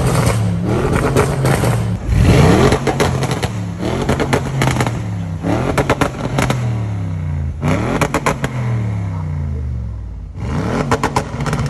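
Audi RS6 Performance's twin-turbo V8 revved in about six sharp blips, each rising and then falling back, with pops and crackles from the loud exhaust as the revs drop.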